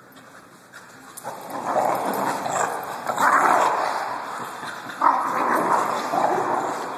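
Two dogs vocalising as they play-wrestling, barking and yipping in loud stretches that start about a second in and come again a few seconds later.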